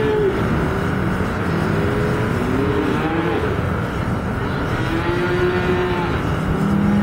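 Calves bawling, many overlapping calls that rise and fall in pitch, over a steady noisy background.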